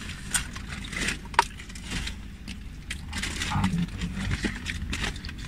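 Paper food wrappers crinkling and rustling as they are handled, in irregular little crackles over a steady low rumble inside a car.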